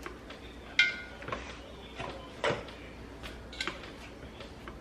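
A utensil knocking and clinking against cookware while cooked rice is scooped and spread into a baking pan: a few separate light knocks, one with a brief metallic ring about a second in.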